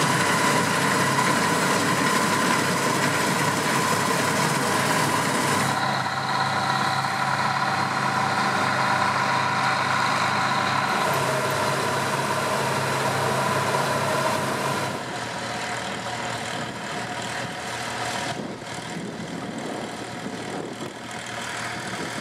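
Bizon Z056 combine harvester running while harvesting: a steady engine and threshing-machinery drone with a high whine. About fifteen seconds in it gives way to a quieter engine running at a steady idle, the Ursus C-360-3P tractor.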